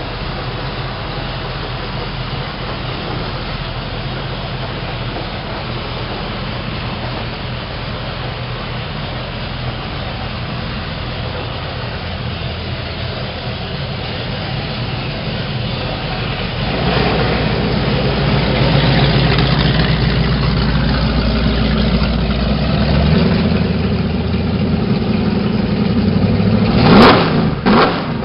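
Mercury Racing 8.2 H.O. big-block V8 marine engines with CMI exhausts running at idle on their first start, getting louder about two-thirds of the way through, then a few short sharp throttle blips near the end.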